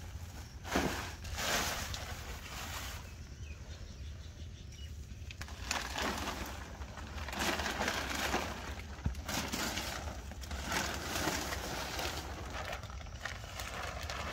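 Plastic sheeting rustling and crackling in irregular bursts as it is pulled off and bunched up by hand.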